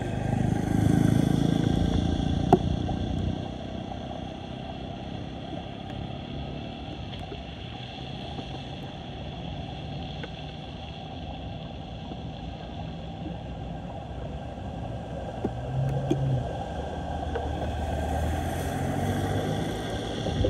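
Steady rush of floodwater draining down a storm drain in a whirlpool, with rain falling on the flooded road. Vehicles driving through the floodwater swell up about a second in and again near the end.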